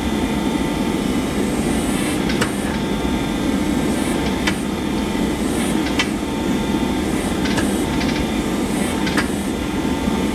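Steady mechanical drone of a forging press and forge, with about five sharp metallic clicks spaced every second and a half to two seconds as a red-hot steel bar held in tongs is squeezed and turned in a half-moon die.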